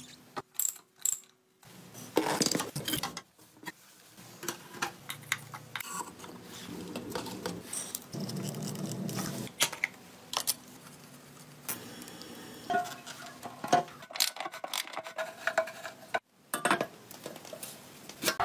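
Irregular metal clicks, clinks and knocks of hand tools and metal motorcycle parts being handled and fitted during assembly, with a short ratchet-like stretch.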